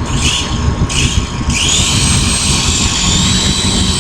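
Small electric model helicopter's motors and rotor, two short bursts of throttle and then spinning up about a second and a half in to a steady high-pitched whine.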